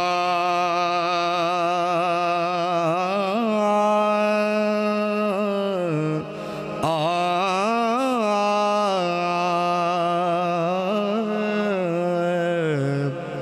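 A man singing a naat solo into a microphone. He holds long, drawn-out notes with wavering ornaments, and no instruments are heard. There are two long phrases, with a short breath break about six seconds in.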